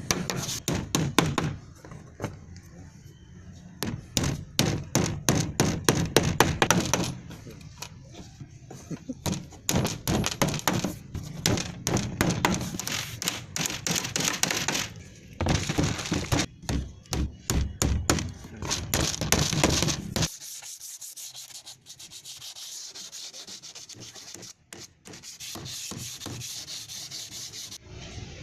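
Wood being sanded by hand: rapid back-and-forth rubbing strokes in several spells, which stop about twenty seconds in, leaving a faint steady hiss.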